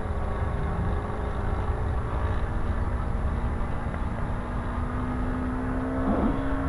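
Motor of a radio-controlled model Cessna droning steadily while it flies high overhead, one thin tone whose pitch creeps slightly upward, over a low rumble.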